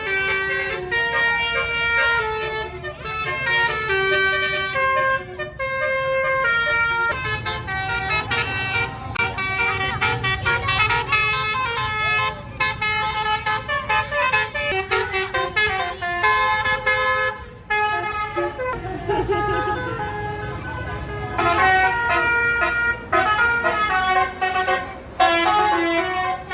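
Basuri 'telolet' bus horn, a multi-tone musical horn on a bus, playing a tune of held horn notes that step up and down in pitch, almost without a break, over a low engine and traffic rumble.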